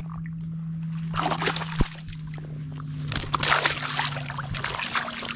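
Shallow water sloshing and splashing around a freshly caught fish held at the surface, in irregular bursts starting about a second in. A steady low hum runs underneath.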